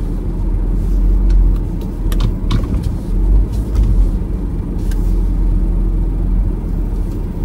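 Steady low rumble of a car's road and engine noise heard from inside the cabin while driving slowly, with a few light clicks.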